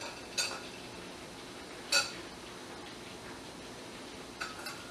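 Metal canning lids clinking against a glass bowl of hot water as they are moved with a plastic lid wand: a faint clink early, one loud ringing clink about two seconds in, and a short ringing one near the end, over a steady background hiss.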